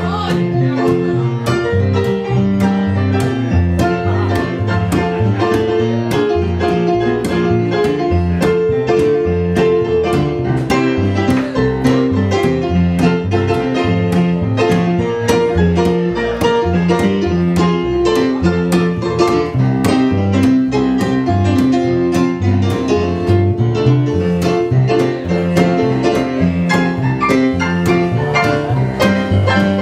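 Live band playing an instrumental tune with a steady beat.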